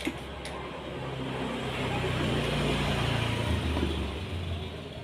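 Small two-stroke engine running, building up in speed and loudness, then dropping back to a lower, slower pitch after about three and a half seconds.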